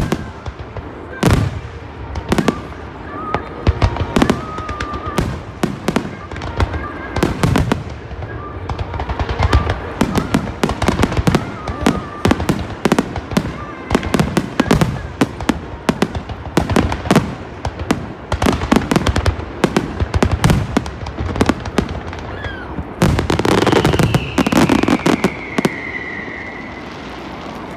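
Aerial fireworks shells bursting one after another with booming bangs that echo, the bursts coming thick and overlapping from about ten seconds in. Near the end a long whistle falls slowly in pitch over the bangs.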